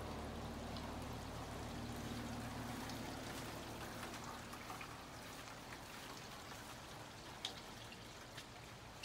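Light rain sprinkling, with water trickling and dripping around the eaves: a steady soft patter with scattered drips. A low hum underneath fades away within the first few seconds.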